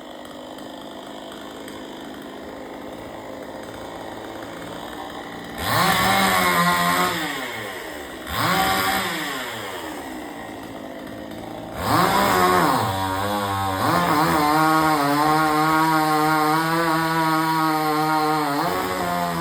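Chainsaw engine idling, then revved up hard three times in quick blips, then held at steady high revs for the last third, as when a cut is under way.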